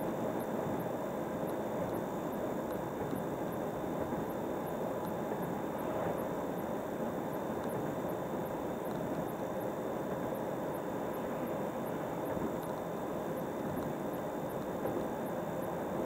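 Steady road and engine noise of a car driving at highway speed, even throughout.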